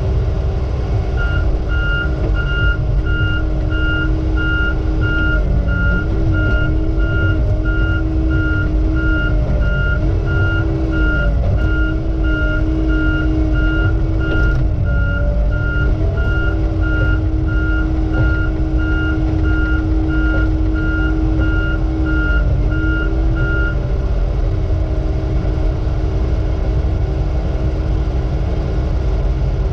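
Log loader's diesel engine running steadily, its note dipping briefly a few times. Over it a heavy machine's backup alarm beeps regularly from about a second in, stopping about three-quarters of the way through.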